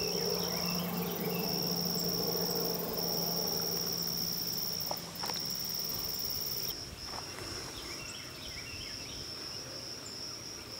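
An insect trilling steadily at a high pitch, broken now and then by brief gaps, over a low hum that stops about two-thirds of the way through.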